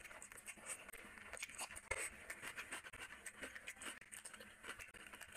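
Close-miked chewing and wet mouth smacking from a mouthful of rice and curry, with sticky clicks of fingers working the food, in a quick irregular run of small sounds.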